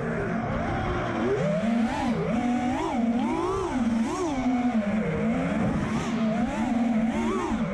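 FPV freestyle quadcopter's brushless motors and propellers whining, the pitch rising and falling over and over as the throttle is punched and eased.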